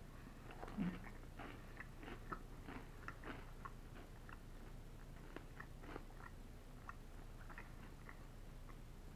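A person chewing a mouthful of Red Baron French bread pizza with a hard, dry crust: soft, irregular crunches and mouth noises, about one or two a second, with a firmer crunch about a second in.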